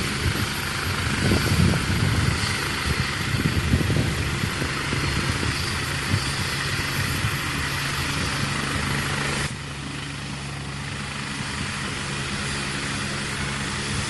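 Helicopter running close by, a steady engine-and-rotor drone with gusts of rotor downwash buffeting the microphone. The sound turns suddenly quieter and duller about nine and a half seconds in.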